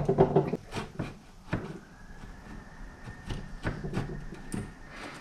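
Steel wood chisel paring out a shallow mortise in a wooden door edge by hand: a run of irregular short scrapes and clicks as the blade cuts and lifts out wood.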